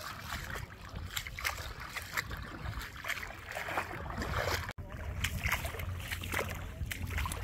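Shallow seawater sloshing and splashing in small, irregular splashes, with a brief break about two-thirds of the way through.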